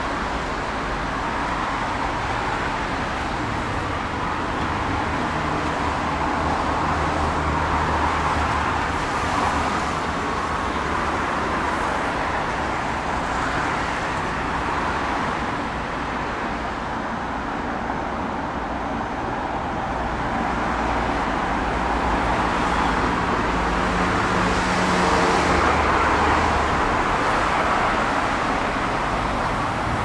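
Steady traffic on a multi-lane road, a continuous hum of tyres and engines with a low engine drone, swelling as vehicles pass about eight seconds in and again near the end.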